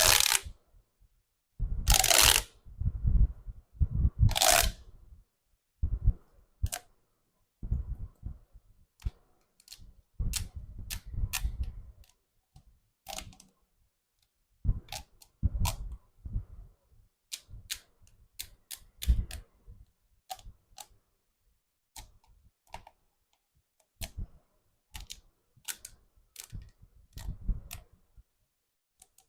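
Small toys being handled: irregular clicks, taps and light knocks, with a few short bursts of rustling in the first few seconds.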